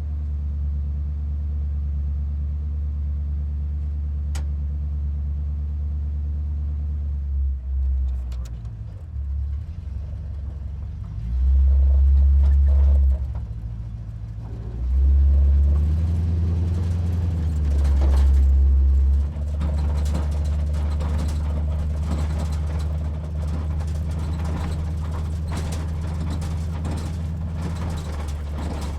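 Monster truck engine idling with a deep, steady rumble, revved up three times in the middle, each rev lasting one to two seconds before dropping back to idle.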